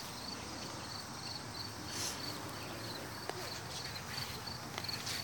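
An insect chirping steadily, short high chirps about three a second at an even rate, over a light outdoor hiss. A couple of brief rustles come about two seconds in and near the end.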